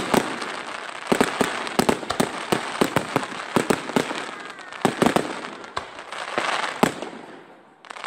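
Aerial fireworks bursting: a rapid string of sharp bangs over a continuous crackling hiss, thinning out and fading near the end.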